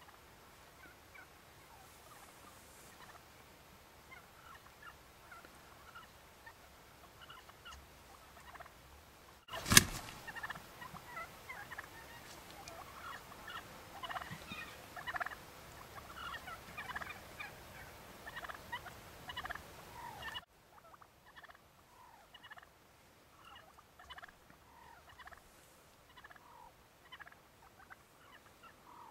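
A flock of wild turkeys gobbling and calling, many short calls overlapping one another. A single sharp, loud knock comes about ten seconds in, and the calls are louder for the next ten seconds or so before dropping back suddenly.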